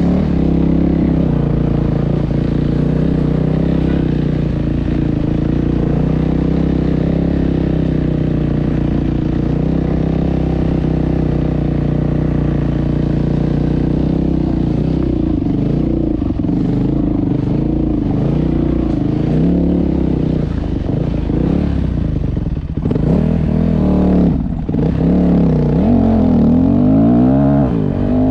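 A motor vehicle engine running steadily, its pitch rising and falling with engine speed, more often in the last few seconds.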